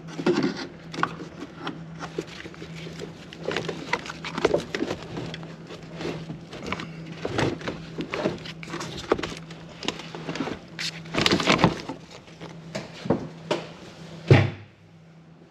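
Clicks, scrapes and knocks of a car battery being worked loose and lifted out of its tray in the engine bay, with a heavy thunk near the end, over a steady low hum.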